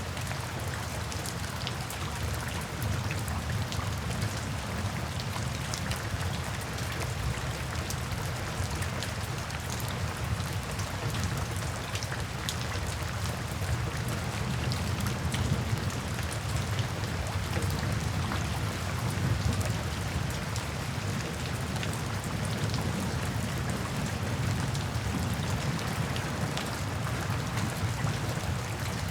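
Steady rain falling, with many small drop ticks over a continuous low rumble.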